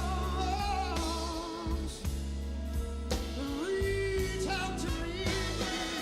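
A soul record playing: a vocalist sings with vibrato over bass and drums, holding a long note through the middle.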